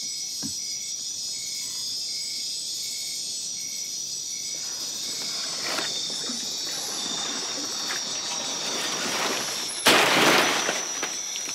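Night chorus of rainforest insects, a steady high-pitched buzzing and trilling, with a call pulsing about twice a second through the first few seconds. From about halfway, footsteps and the rustle of leaves and branches join in as people push through the undergrowth, loudest with a sudden brushing about ten seconds in.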